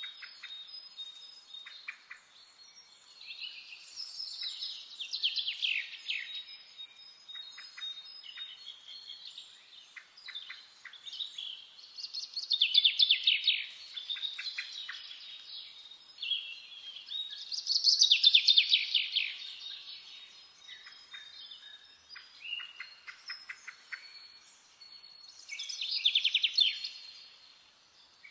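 A songbird singing: loud phrases of rapid trilling notes that fall in pitch, coming every six to eight seconds, with softer chirps in between.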